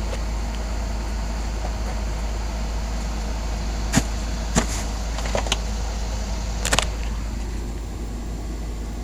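A steady low mechanical hum, with a few sharp clicks and knocks partway through.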